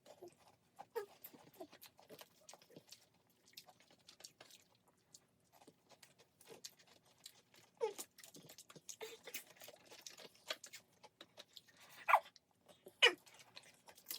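Close-up eating sounds of fried chicken and rice: crisp skin crackling, chewing and small mouth clicks. Two short falling vocal sounds near the end.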